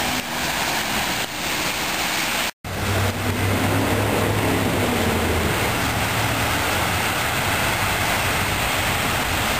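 Cars driving through deep floodwater, tyres throwing up spray with a steady rushing, splashing hiss. After a brief break in the sound, a low engine hum from vehicles creeping through the flooded road joins the hiss for a few seconds.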